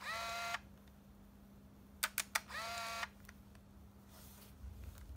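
Olympus Trip AF 51 compact film camera firing twice. Each time comes a quick run of three clicks from the shutter, then about half a second of whirring from the film-advance motor, its pitch rising briefly and then holding steady. The first whir opens the sound and the second set comes about two seconds in, with a faint rustle of the camera being handled near the end.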